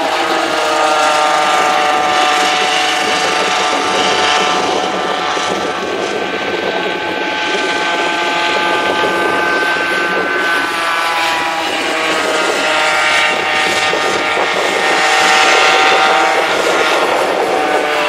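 Several 50 cc two-stroke Easykart kart engines buzzing together as a pack laps the circuit, their pitches slowly rising and falling as the karts accelerate and brake through the corners.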